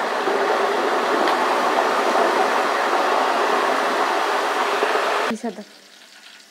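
Thin potato slices deep-frying in hot oil, sizzling hard and steadily just after a spoonful of salt water is stirred into the oil; the chips are still giving off moisture and not yet crisp. The sizzle cuts off suddenly about five seconds in.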